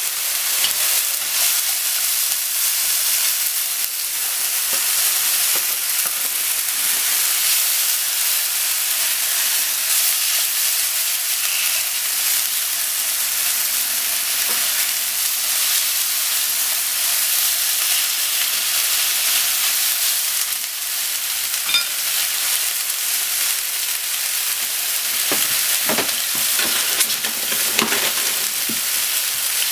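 Sliced onion and mushrooms sizzling steadily in a nonstick frying pan as they are stir-fried, with slices of raw pork laid into the hot pan partway through. Near the end come a few short, sharp clicks.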